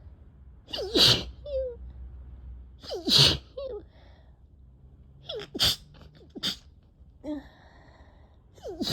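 A fit of repeated sneezing: loud sneezes about every two seconds, with smaller sneezes or sniffs in between.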